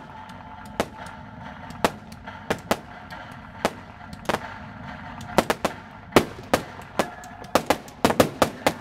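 Fireworks display: aerial shells bursting in a string of sharp bangs, spaced out at first and coming thick and fast in the last second or so.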